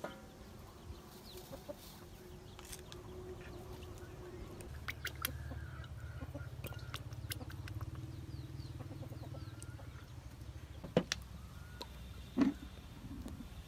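Chickens clucking, with a low steady hum through the middle and two sharp knocks near the end.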